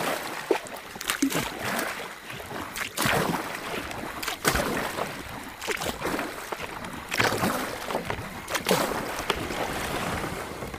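Kayak paddle splashing in repeated strokes, about one every one to two seconds, over a steady hiss of water, as the kayak is run over a beaver dam.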